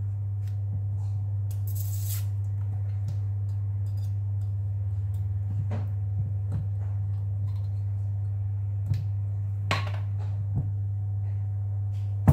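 A steady low hum throughout, with a few sharp clinks of a metal utensil against a glass jar as fruit pieces are lifted out of it.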